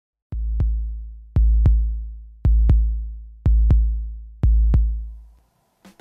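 Electronic intro music: five deep drum-machine bass booms about a second apart, each followed closely by a sharp second hit and a long fading decay. Busier music starts just before the end.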